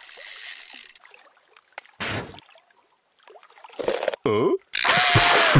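Cartoon sound effects: a soft hiss, a short burst of noise, then warbling, gurgling sounds and a loud rushing noise with a wavering tone near the end.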